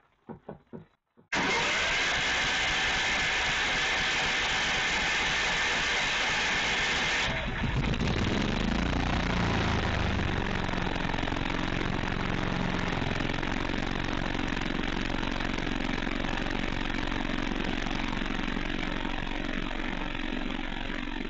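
Energizer portable generator starting up by itself on a power outage and running. It comes on abruptly about a second in, then about seven seconds in its note shifts for a few seconds before settling into a steady run.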